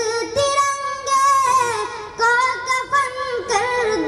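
A boy singing a Hindustani kalam solo into a microphone, drawing out two long held phrases with melodic turns and a short breath about two seconds in.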